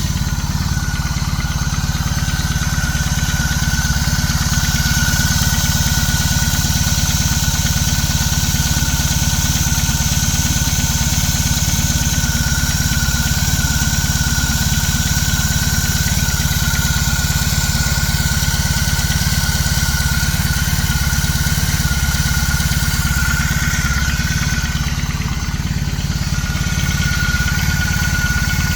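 BMW R18 Classic's big air/oil-cooled boxer twin idling steadily after a cold start, with a rattling, knocking noise that sets in a few minutes after the cold start; the cause is unknown to the owner.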